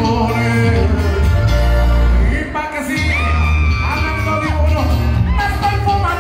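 Live band music led by a button accordion, over a strong bass, with singing and crowd shouts. The bass drops out briefly about halfway through, then comes back in.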